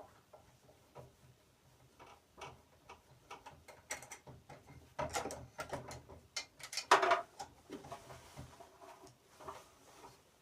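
Irregular metal clicks and clanks of tools and parts being handled at a table saw, as the blade is worked loose. The clicks cluster about four to six seconds in, and the loudest knock comes about seven seconds in.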